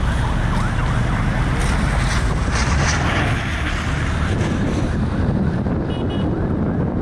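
Steady wind rumble on the microphone over street traffic noise from moving cars and motorbikes, with a brief high beep about six seconds in.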